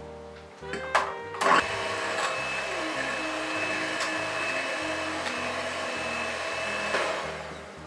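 Electric hand mixer whipping non-dairy cream in a glass bowl: after a couple of knocks about a second in, the motor runs with a steady whir and whine, then stops about a second before the end. Background music plays under it.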